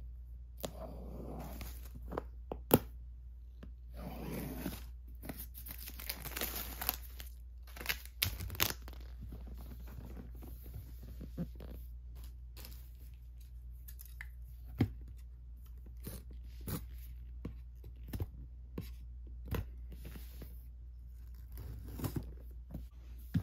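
Plastic shrink-wrap being cut with scissors and torn and crinkled off a cardboard box, in several rustling stretches during the first eight seconds, followed by scattered sharp clicks and taps as the box and scissors are handled and the seals are cut.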